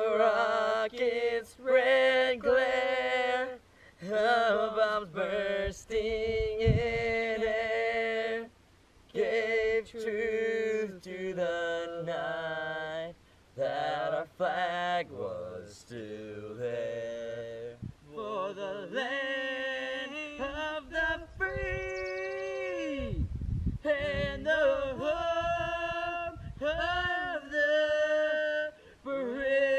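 Slow singing, with long held notes and sliding runs between phrases, and short breaks where the voice stops.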